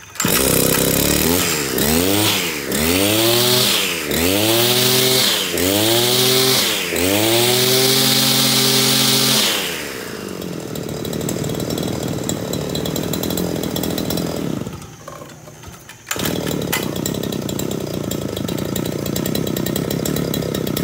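Robin two-stroke brush-cutter engine starting, then revved up and let back down about six times before settling to a steadier, lower idle, with a brief drop in level near the end.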